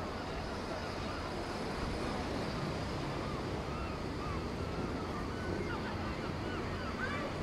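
Steady wash of sea and wind, with the low, steady diesel hum of a receding High Speed Train's Class 43 power cars underneath.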